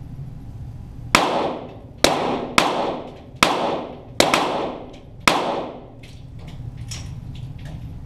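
.22 Walther GSP target pistols firing about seven shots in quick succession, two of them nearly together, each shot trailing off in a long echo. A few fainter ticks follow near the end.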